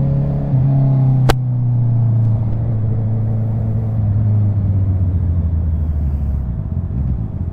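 Honda CB650R's inline-four engine running as the motorcycle is ridden, heard from the rider's seat. The engine note falls gradually as the bike slows, with one sharp click about a second in.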